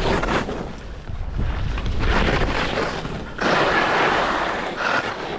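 Skis scraping and hissing over chopped-up, crusty snow, swelling in surges with each turn, with a low rumble of wind buffeting the microphone.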